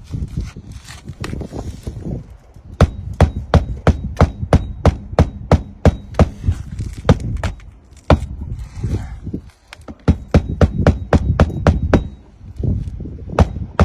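Hammer driving roofing nails through asphalt shingles into the roof deck: runs of sharp strikes about three a second, with two short breaks.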